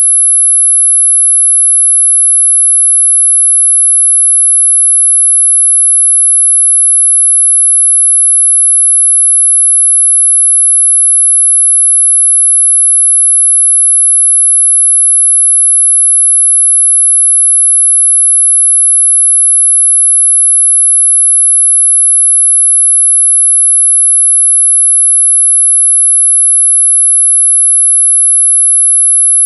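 A steady, very high-pitched pure sine tone at 11 kHz, held at one pitch and one level throughout: a synthesized tone for masking high-pitched tinnitus ringing.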